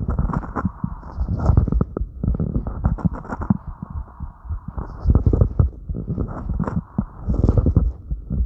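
A person's fast heartbeat after light crunches, a run of low thumps, with breathing sounds swelling and fading every second or two.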